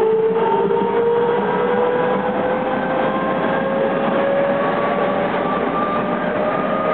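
Odakyu 2000 series electric train's traction motors whining in a slowly rising pitch as the train accelerates, heard from inside the motor car over steady wheel and rail running noise.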